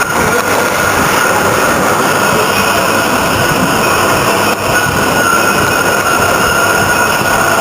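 Radial drilling machine running with its gears engaged: a loud, steady mechanical noise with a high, steady gear whine over it and a brief dip about halfway through.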